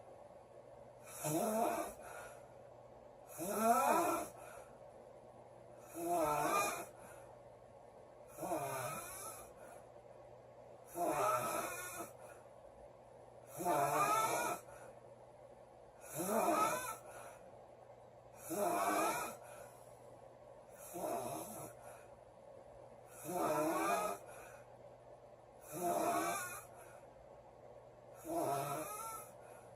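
A woman snoring in her sleep, one snore on each breath, roughly every two and a half seconds, about twelve in all.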